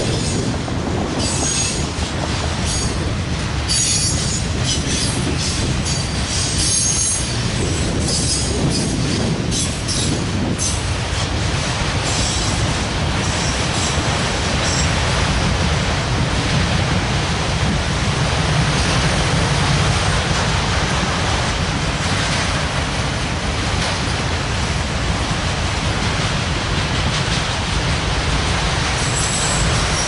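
Norfolk Southern freight train's autorack cars rolling past, a steady rumble of steel wheels on rail. High-pitched wheel squeal comes and goes during the first dozen seconds, then the rumble carries on alone.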